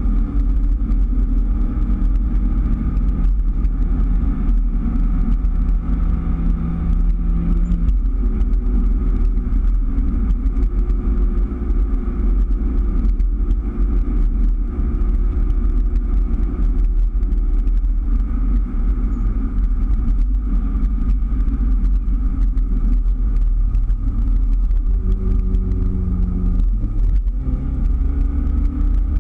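2003 Daihatsu Terios engine and road noise heard from inside the cabin on the move, a steady low rumble. The engine note shifts about eight seconds in and again near the end, with a brief dip just before the end.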